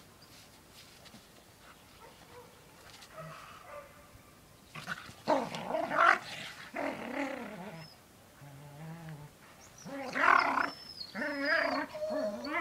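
Two dogs play-fighting, growling in rough bursts of about a second each that begin about five seconds in.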